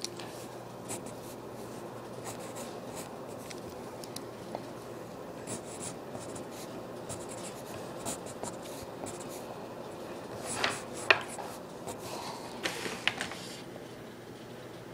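Pencil drawing on paper: short scratchy strokes, with a few sharper, louder clicks about two-thirds of the way through.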